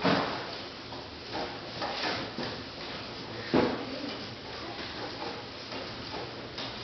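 Two dull knocks about three and a half seconds apart, with soft rustling and small bumps between: a cloth sheet and cardboard stage props being handled and waved by hand.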